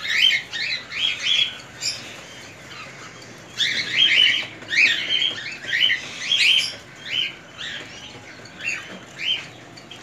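Caged aviary birds chirping: runs of short, high calls two or three a second, with a lull about two seconds in and another about seven seconds in.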